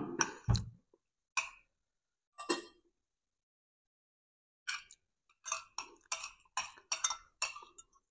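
Metal spoon and fork clinking and scraping against a plate as fried catfish is picked apart: a loud clink at the start, a few single ones, then a quick run of a dozen or so in the second half.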